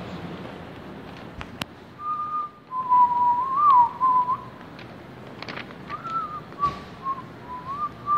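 A person whistling a tune: a wavering melody of held and sliding notes that starts about two seconds in, pauses around the middle, then picks up again.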